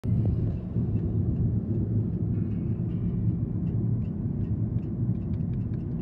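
Car driving, heard from inside the cabin: a steady low rumble of engine and road noise, with faint scattered ticks.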